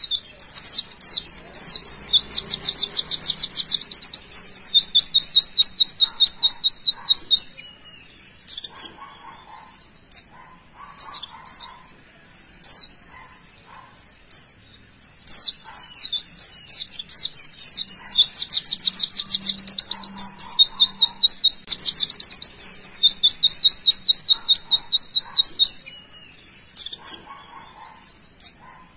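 White-eye (pleci) singing its 'tembakan', a long, very rapid high-pitched trill, for about the first seven seconds and again from about sixteen to twenty-six seconds. Short, sharp chirps come scattered between the trills.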